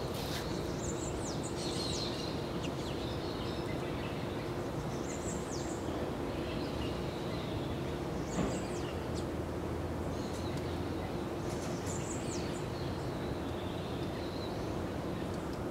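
Short high bird calls, each a quick run of chirps, repeated about every three to four seconds over steady outdoor background noise with a faint low hum. A single soft knock sounds about eight seconds in.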